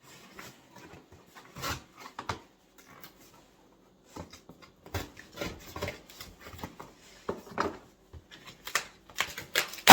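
A cardboard shipping box being opened by hand: irregular scraping, rubbing and knocks of cardboard and packing, with a sharper knock near the end.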